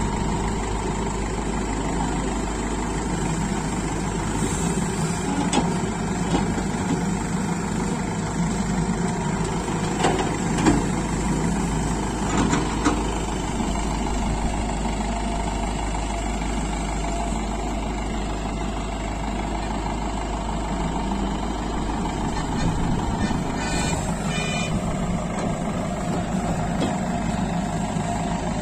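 Heavy diesel machinery engine running steadily. A few sharp knocks or clanks come about ten to thirteen seconds in, and a brief high-pitched tone sounds about three-quarters of the way through.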